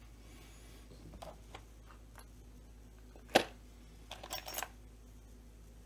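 A small dish of parts set down on a workbench: a few faint clicks, then one sharp knock about three seconds in, followed by a short rattle of clicks as the parts shift.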